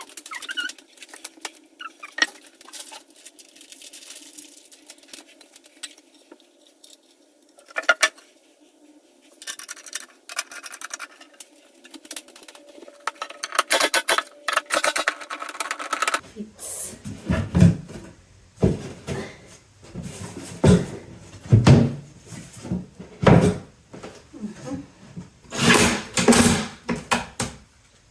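Irregular clicks, scrapes and knocks of bunk-bed staircase parts and bolts being handled and fitted together; about halfway through, the knocks become heavier and fuller.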